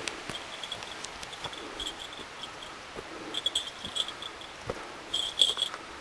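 High, rapid chirping in short bursts, loudest in two runs about three and five seconds in, over a steady hiss of distant running water, with a few light footsteps on the trail.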